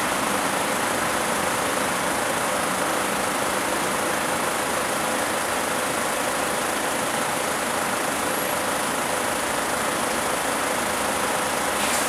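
Road vehicles idling in stopped street traffic: a steady engine and traffic noise that holds even throughout, with no sharp events.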